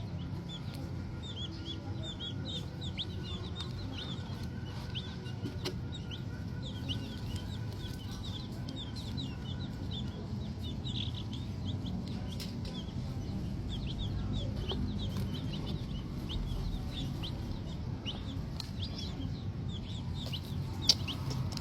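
Green junglefowl chicks cheeping: many short, high peeps, several a second, over a steady low rumble.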